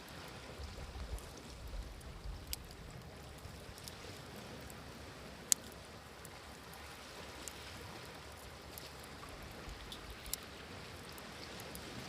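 Wood fire crackling with scattered pops over the steady wash of sea waves; one sharp pop stands out about five and a half seconds in.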